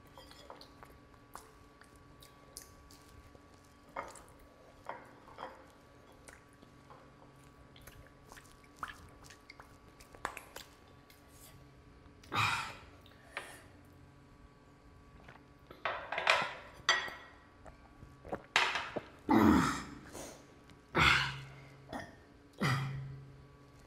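Close-miked eating sounds at the end of a meal. In the first half there are light clicks and scrapes of fingers wiping a plate. From about halfway come a series of louder wet mouth sounds, lip smacks and slurps, the loudest near the end.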